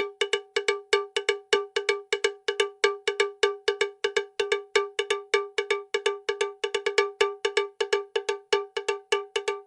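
A bell-like metallic tone struck over and over, about five times a second, every strike at the same pitch and dying away quickly, with no let-up.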